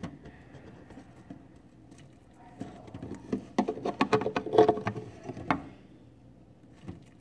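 Rapid clicks and knocks from handling a plastic cricket-carrier tube as it is moved about the tank. They come as a burst of several a second around the middle, with fainter rustling before it.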